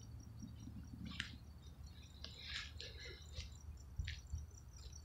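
Faint clicks and rustles of handling close to the microphone over a low steady hum, with a faint, even high-pitched pulsing about five times a second in the background.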